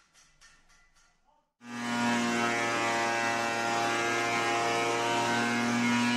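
Faint, even ticking about three times a second, then about a second and a half in an electric benchtop planer-thicknesser comes in loud, running steadily with a whine of several held tones.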